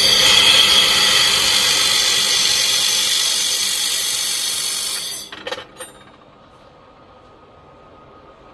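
Handheld 1.5 kW fiber laser welder firing on a weld pass: a loud, steady hiss that starts abruptly and cuts off about five seconds in, followed by a couple of short clicks.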